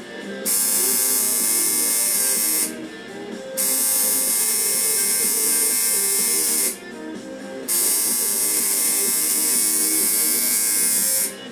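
Tattoo machine buzzing steadily in runs of three to four seconds. It starts about half a second in, stops briefly twice and cuts off near the end.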